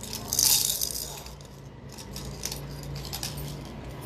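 Light clinking and jingling of small hard objects being handled, loudest about half a second in, then scattered small clicks, over a steady low hum.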